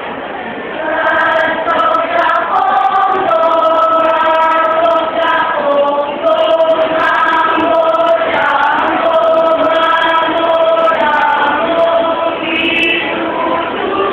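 A group of voices singing together as a choir, holding notes of about half a second to a second each. The singing grows louder about a second in.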